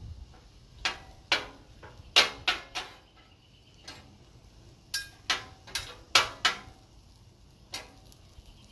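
Metal spatulas clacking and tapping on a steel flat-top griddle, about a dozen sharp strikes in irregular bunches.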